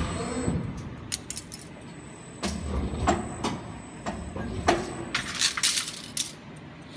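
Injection molding machine running its cycle on a plastic cutlery mold: a series of sharp clacks and rattles, with a low rumble partway through and a dense cluster of clacks near the end, as the mold opens. A faint steady high whine stops about five seconds in.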